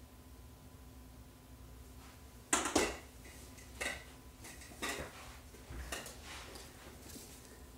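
Fingers rubbing across the surface of a watercolour painting on paper to lift off dried masking fluid: a series of about five short scratchy rubs, the loudest a couple of seconds in, over a faint steady hum.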